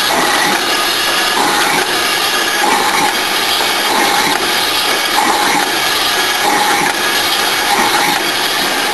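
Paper cup lid making machine running, a steady mechanical clatter and hum with a short repeating note about every second and a bit as it cycles through lids.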